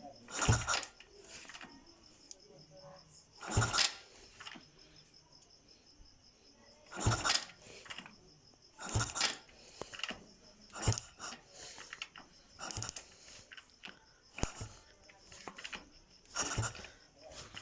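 Ignition spark test on a freshly rewired Global Rock 100 motorcycle: a string of short, sharp snapping clicks, about one every second or two, as the engine is turned over and the spark plug fires.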